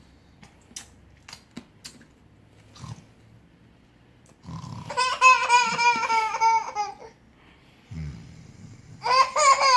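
Exaggerated, cartoon-style pretend snoring by a person, twice: each time a short rasping snore in, then a long, high, wavering whistle-like tone on the way out. A few faint clicks come before the first snore.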